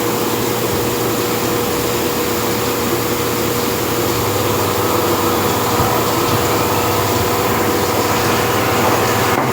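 CNC machine running steadily: a constant whine over a wide hiss and a low hum, which cuts off abruptly at the end.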